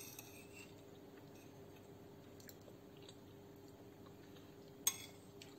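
Faint chewing of a mouthful of food, with a metal fork clinking once against a plate about five seconds in. A faint steady hum runs underneath.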